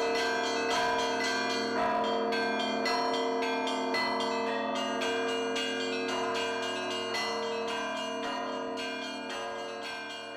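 Several bells rung together in a quick pattern of repeated strikes, their tones ringing on and overlapping, slowly growing quieter toward the end.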